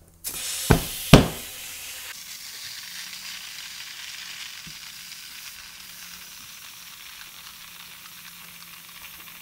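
Compressed air hissing into a scooter tire through the open valve stem, its valve core removed to let air in fast. About a second in, two loud pops as the tire's beads snap onto the rim; the steady hiss of the air then runs on.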